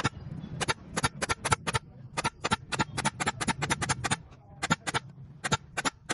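A rapid series of sharp clicks or knocks, about four or five a second, in runs broken by short pauses about two seconds in and again past the middle.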